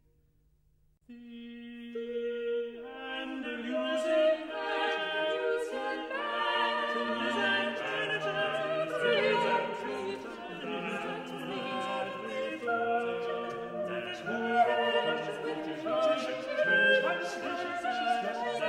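Unaccompanied small vocal ensemble singing a Renaissance madrigal in several parts. After about a second of near silence, a low voice enters, then higher voices join one after another over the next two seconds and build into full, interweaving polyphony.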